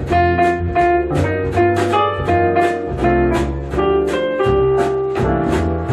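Jazzy music with guitar and a steady beat, played back through Yamaha NS-590 loudspeakers with beryllium dome tweeters.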